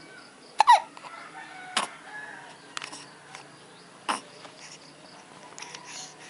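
Young baby hiccuping, about five hiccups roughly a second apart. The first is the loudest, with a short squeak that falls in pitch.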